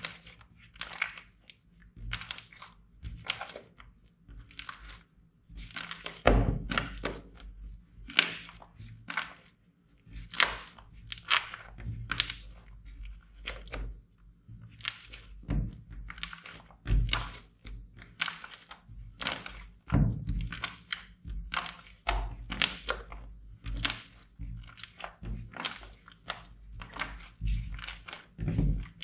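Slime being squeezed and pressed by hand: a run of short, irregular squishes and crackles, about one or two a second, some with a low thud.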